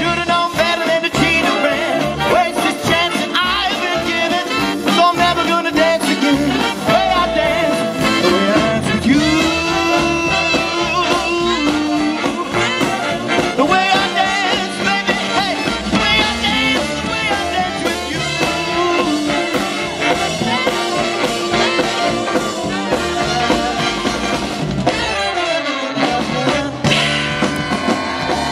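Live swing band playing an upbeat number, with a horn section of saxophones and brass carrying the melody over a steady beat.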